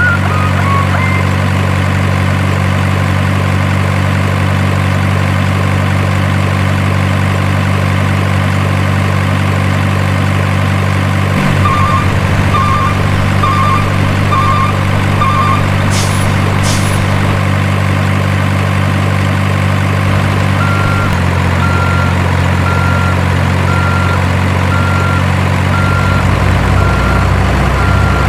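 RC dump truck sound modules playing a steady idling diesel truck engine. A run of reversing beeps comes about halfway through, followed by two short air-brake hisses, and from about three quarters of the way through a steady reversing beep sounds about once a second.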